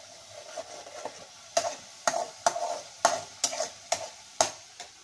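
Onion paste sizzling as it fries in hot mustard oil in a metal kadai, stirred with a metal spoon. From about a second and a half in, the spoon scrapes and knocks against the pan about twice a second.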